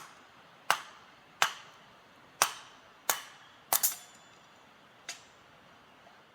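A series of about eight sharp knocks, roughly one every 0.7 seconds, with two close together just before four seconds in and a fainter last one near five seconds.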